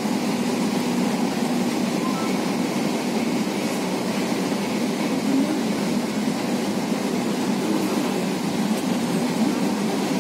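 Kochi Metro electric train running on its elevated track, heard from inside the passenger car: a steady, even running noise of wheels and traction equipment, with no stops or changes.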